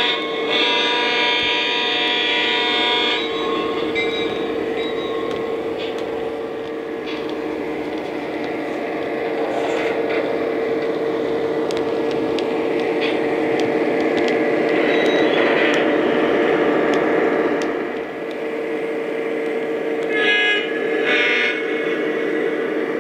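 Lionel Legacy GP20 O-gauge model locomotive running with its onboard diesel sound system: a steady engine drone, a long horn blast that ends about three seconds in, and two short horn toots near the end.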